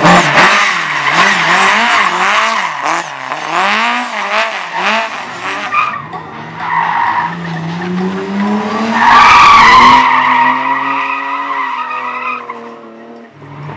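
Slalom race car's engine revving up and down in quick swings as it weaves through the course, with tyres squealing. About nine seconds in it accelerates hard to its loudest, holds a high steady note, then falls away near the end.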